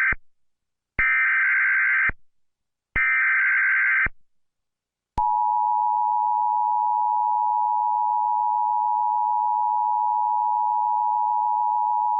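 Emergency Alert System header and attention signal: the end of one burst and then two more one-second bursts of SAME digital header data, a buzzing warble with short gaps between them. About five seconds in, the steady two-tone EAS attention signal starts and holds.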